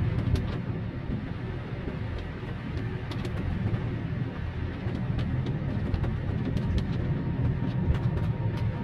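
Interior noise of a Daihatsu car driving on a wet road: a steady low engine and tyre rumble, with scattered light ticks from rain hitting the car.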